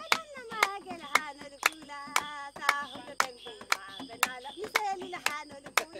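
Voices singing together over steady hand clapping, about two claps a second.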